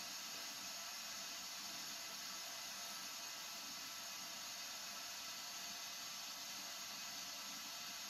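A steady, even hiss with no changes or distinct events.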